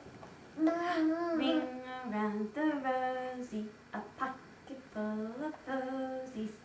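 A woman singing a slow tune to a baby, with long held notes and short pauses between phrases.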